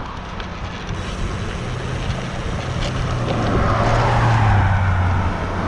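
A motor vehicle passing on the road. Its low engine and tyre hum builds to a peak about four seconds in, dropping slightly in pitch as it goes by.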